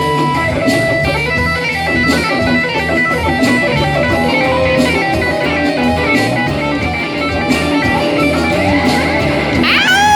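A live band plays, led by electric guitar over a steady drum beat. Near the end, a guitar note bends sharply upward and holds.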